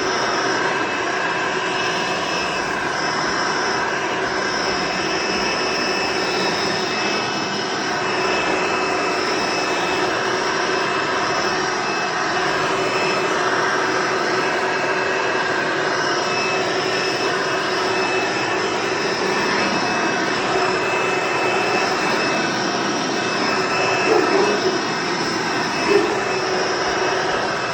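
Hoover Encore Supreme vacuum cleaner running steadily while vacuuming a floor: a loud, even motor whine with several high held tones. Two short louder sounds come near the end.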